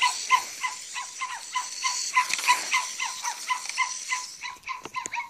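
Zoomer robot dog's speaker playing rapid electronic barking, short yaps about five a second over a steady hiss. This is the toy's guard response to the "protect me" command.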